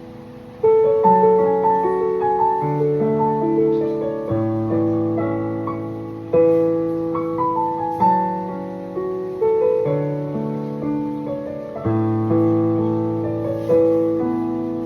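Yamaha P45 digital piano playing a flowing, gentle melody over rolling left-hand arpeggios, each note struck and fading, after a short pause about half a second in.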